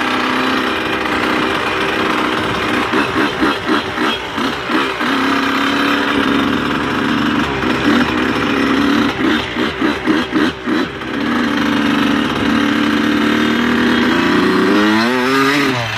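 Dirt bike engine running while riding, held at a steady mid rev, broken twice by stretches of rapid choppy throttle on and off, then the revs fall away near the end.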